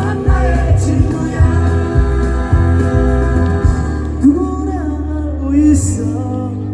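Live band music with a male singer holding long notes over a steady bass line, his voice sliding in pitch about four and six seconds in.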